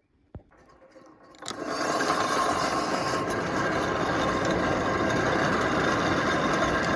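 A single click, then from about a second and a half in a forge's hand-cranked blower whirring steadily, forcing air into the coals to bring the steel back up to heat.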